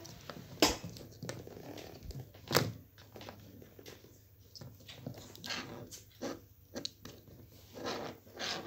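An Alexandrine parakeet biting and gnawing at a mobile phone, its beak cracking and scraping on the plastic and metal case. There are sharp cracks about a second in and again near the three-second mark, then a string of rasping bites.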